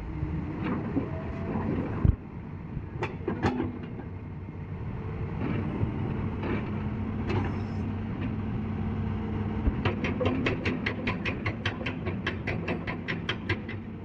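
Sany SR155 rotary drilling rig's diesel engine running steadily, with scattered metallic knocks, then a fast even run of clicks, about five a second, for a few seconds near the end.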